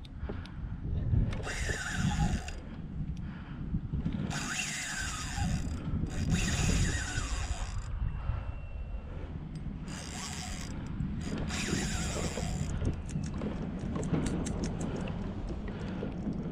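Spinning reel's drag screaming in five bursts of a second or so each as a large snook pulls line off against it, then a quick run of short clicks near the end.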